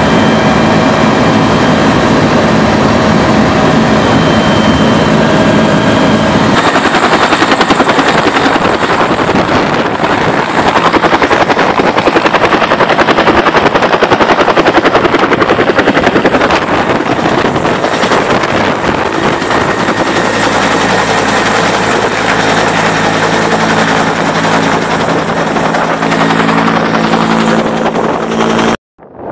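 Bell 212 helicopter running loud and steady. For the first six seconds it is heard inside the cabin, with a steady turbine and gearbox whine. After a sudden change it is heard from close by outside as a louder, rougher rotor and engine noise. It cuts off abruptly near the end.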